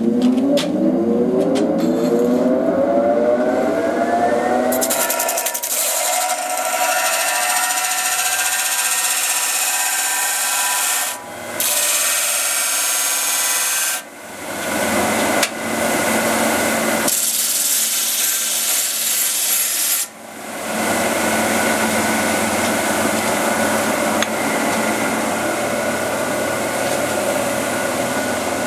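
Oliver 30-inch disc sander's motor spinning up with a rising whine over the first few seconds, then the cut end of a stainless steel exhaust tube ground against the spinning abrasive disc with a loud grinding hiss, to take a little off and square the end. The grinding breaks off briefly a few times as the tube is lifted and set back.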